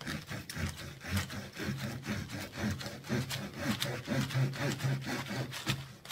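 A knife sawing back and forth through a compressed coir potting brick: a steady run of rasping, scraping strokes, a few a second.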